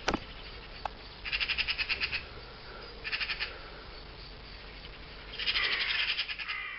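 Magpies and crows alarm-calling at a dead pigeon: three bursts of rapid chattering, the longest near the end.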